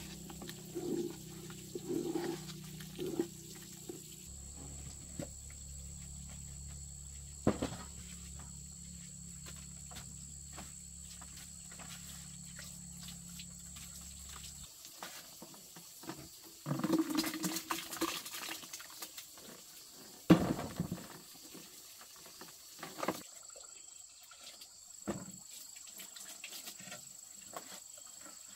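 Liquid sloshing and scraping in a metal pot stirred with a wooden paddle, then scattered knocks and clatter of kitchen work, with one sharp knock about two-thirds of the way through.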